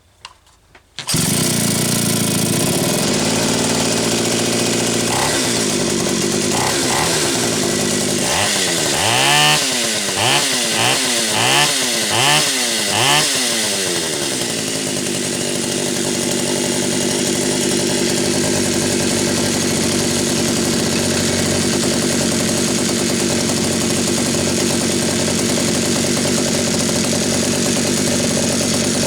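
Pioneer P39 two-stroke chainsaw (66cc-class) coming on suddenly about a second in and running steadily. The throttle is blipped six times in quick succession in the middle, with the pitch rising and falling each time. It then settles back to steady running, now that the saw has fuel.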